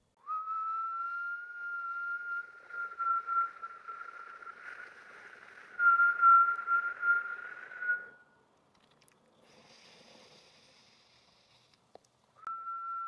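A woman breathing out slowly through pursed lips, making a steady whistle with breath hiss under it, which lasts about eight seconds. After a short pause there is a softer breath in, and a new whistled out-breath starts near the end.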